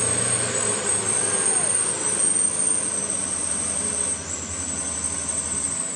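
Loaded Mitsubishi Canter dump truck's diesel engine working hard as it pulls through deep mud, a steady noisy drone with a thin high whine running over it.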